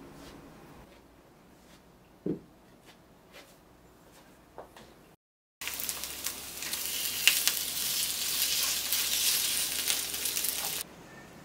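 Acorn pancakes (dotorijeon) with vegetables and seafood sizzling in oil in a cast-iron pan. The sizzling starts suddenly about halfway through and cuts off abruptly near the end. Before it come only faint clicks and a single short knock.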